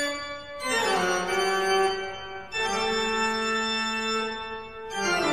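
Background music of held organ-like chords. Twice, about half a second in and again near the end, the chord slides down in pitch into a new one.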